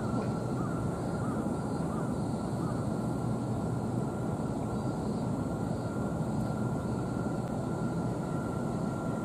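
Steady low rumble of harbour-side industrial and traffic noise with a faint steady whine, and a few faint bird calls in the first few seconds.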